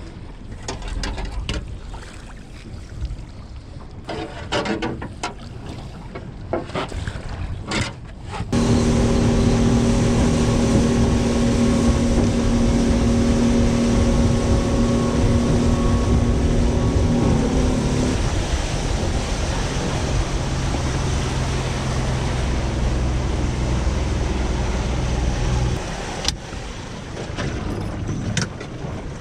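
Wind and water slap against a small aluminium boat's hull, with a few clicks. About a third of the way in, the outboard motor is opened up and runs steadily at speed over rushing water. Its tone eases a little about two-thirds of the way in, and it is throttled back near the end.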